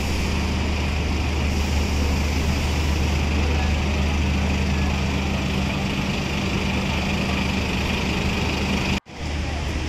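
Road traffic on a city street: a steady low engine hum under a wash of traffic noise. The sound drops out abruptly for a moment near the end.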